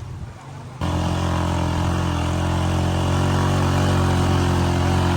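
An engine running steadily at one constant speed, with no revving. It cuts in suddenly about a second in.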